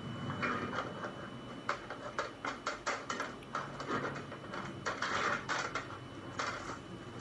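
Clattering and knocking from a man working by hand at the base of a floor-standing ATM. A rapid run of sharp knocks comes about two to three seconds in, then rougher scraping bursts.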